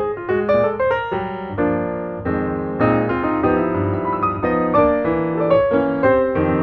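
Background piano music: a steady run of single notes and chords.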